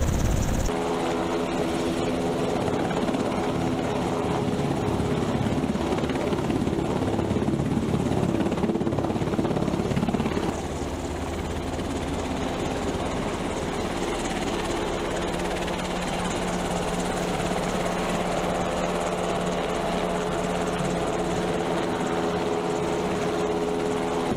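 Sikorsky UH-60 Black Hawk helicopters running, a steady whine from the twin turboshaft engines over the fast chop of the rotor blades. The sound changes character just under a second in and steps down slightly about ten seconds in.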